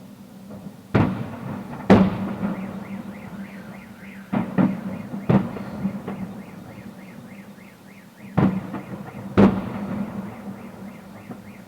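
Fireworks salute shells bursting, about seven loud bangs at uneven intervals, each ringing out briefly. Between the bangs a fast-repeating warbling tone sounds, along with a steady low hum.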